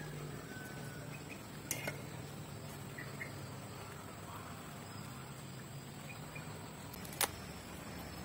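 Forest ambience: a steady high insect drone with a low hum beneath and a few short faint chirps. Two sharp clicks cut through, one about two seconds in and one near the end, as the cooked mud crabs are handled and eaten.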